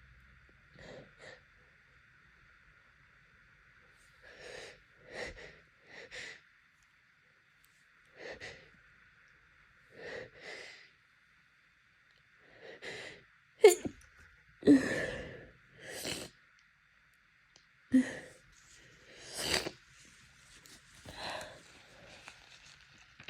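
A woman with allergy congestion sniffling and catching her breath in short, spaced bursts, then sneezing several times, loudly and wetly, in the second half.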